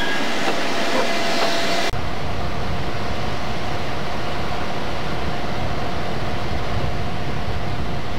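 Diesel locomotive of a Chicago Central & Pacific train passing close by, with a few short squeaks and clicks. About two seconds in the sound cuts abruptly to a steady low rumble with a thin steady whine as another locomotive sits on the track ahead, facing the camera.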